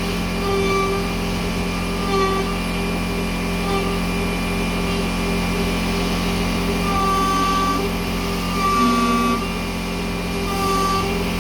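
CNC router's 2.2 kW spindle running at 24000 rpm while an 8 mm roughing end mill cuts aluminium: a steady whine with higher cutting tones that come and go as the tool moves through the pass.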